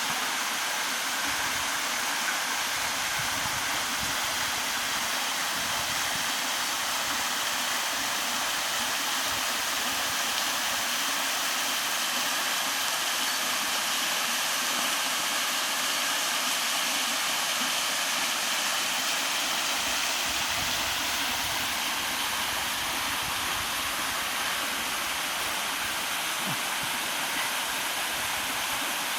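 Waterfall: a steady rush of falling water, even and unbroken, with most of its weight in the upper range.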